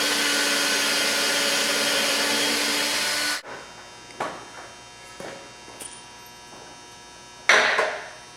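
Electric drill running steadily as it bores a pilot hole into a wooden wall stud, stopping suddenly a little over three seconds in. A few light knocks follow, then a short loud hiss-like burst near the end.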